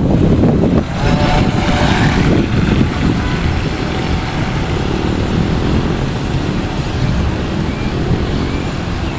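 Wind buffeting the microphone, with the faint whine of a radio-controlled model speedboat's motor under it, clearest about one to two seconds in.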